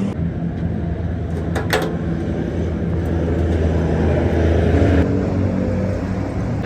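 A machine hums steadily and low, with two sharp clicks about a second and a half in.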